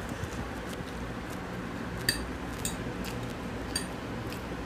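Metal forks and spoons clinking and scraping against dinner plates as noodles are eaten, with scattered clinks, the sharpest about two seconds in.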